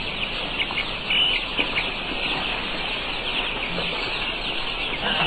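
A flock of broiler chicks peeping continuously, a dense chorus of many overlapping short, high chirps.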